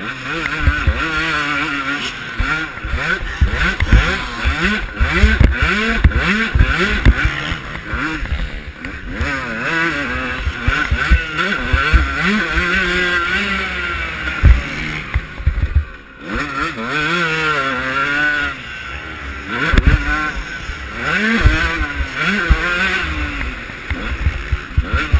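Honda CR125 two-stroke motocross engine revving hard and falling back again and again through a lap, its pitch rising with each burst of throttle and dropping at each shift or lift. It cuts back briefly about 16 seconds in. Low knocks and thumps run under it.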